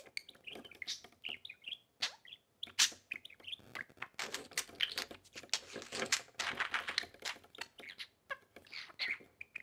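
Pet budgerigars chirping and chattering in quick, short high notes, busiest from about four seconds to seven and a half seconds in, mixed with sharp little clicks.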